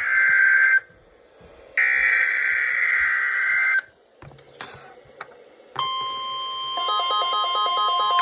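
NOAA Weather Radio Emergency Alert System test: harsh buzzing digital SAME header bursts, one ending under a second in and another lasting about two seconds after a second of quiet. After a pause with a few faint clicks, the steady 1050 Hz warning alarm tone begins, and about a second later a fast alternating two-pitch electronic beeping joins it.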